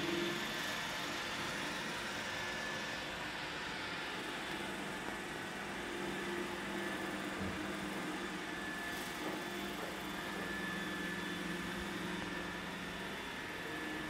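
A Roomba robot vacuum running steadily: a constant motor whine over even suction and brush noise.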